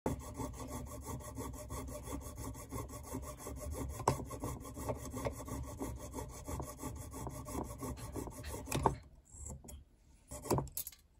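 Fast, even back-and-forth strokes of a fine hand tool rasping on a small brass wire ring, stopping about nine seconds in. A few light clicks follow.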